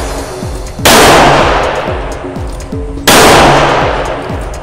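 Two shots from a Ruger Speed Six .38 Special revolver firing Armscor 158-grain rounds, about a second in and again about two seconds later, each ringing out in a long reverberant decay in an indoor range.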